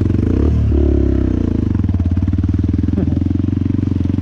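Dirt bike engine running at low trail speed, with a brief dip and rise in engine pitch about half a second in.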